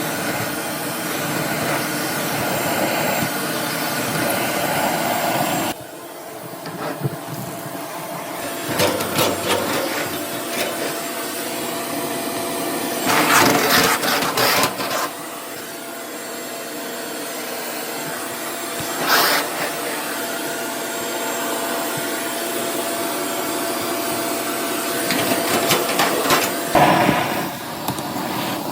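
A vacuum running steadily while a dryer vent duct is cleaned out, its sound dropping suddenly about six seconds in. Several louder bursts of scraping and rattling come through it, the loudest near the middle and near the end.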